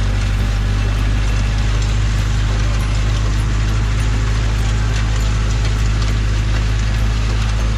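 Farm tractor engine running steadily under load while pulling an inter-row cultivator, with a dense scraping hiss of dry soil through the spring tines and light clicking from the implement.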